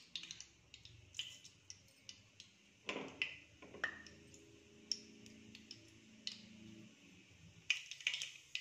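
Mustard seeds popping in hot oil in a stainless steel pressure cooker: scattered sharp ticks and clicks that grow denser about a second before the end as the seeds start to splutter.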